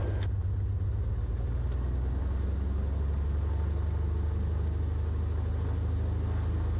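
Cessna 182 Skylane's Continental O-470 six-cylinder engine idling steadily while the plane holds short before its run-up, heard from inside the cabin.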